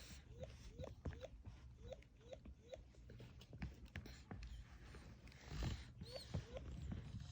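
Recorded animal sound from a children's sound picture book's speaker: a run of short rising squeaks, about two or three a second, then a few more after a pause near the end.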